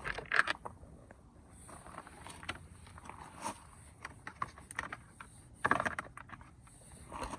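Hand work on a car door's interior panel: small clicks, rattles and scrapes of a Phillips screwdriver and plastic trim being handled, with louder clatters near the start and about six seconds in.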